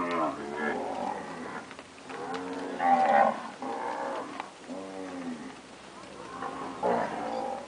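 Nelore cattle mooing, several long calls one after another and overlapping, the loudest about three seconds in.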